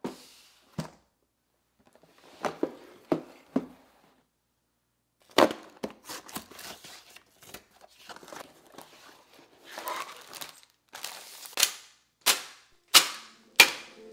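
Cardboard Lego set box handled and opened, with scattered knocks and rustling as the parts are pulled out, then sealed plastic bags of Lego pieces dropped onto a table one after another as four sharp clattering hits near the end.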